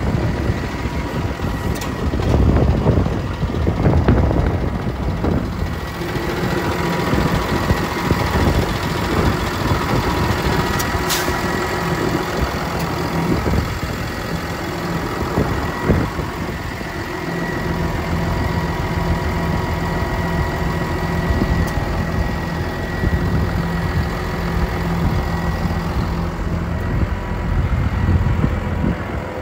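Cummins diesel engine of a Ford F-750 medium-duty truck idling steadily, with a faint steady high whine on top.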